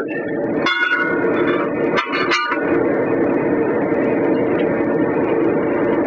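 Metal tire irons clanking against a mower wheel's metal rim while a tire is worked off by hand: three sharp metallic clanks that ring briefly, one under a second in and two close together about two seconds in, over a steady hum.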